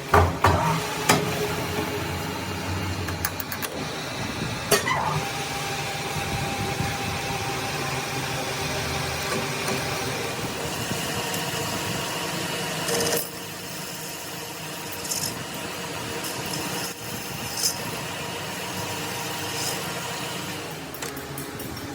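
A machine running steadily, with a few sharp knocks in the first few seconds and a drop in level about halfway through.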